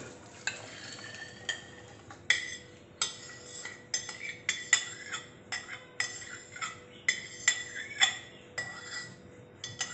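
Metal spoon scraping and knocking inside a stainless steel bowl, a string of short ringing clinks about twice a second, as the last of the pudding mixture is scraped out of it.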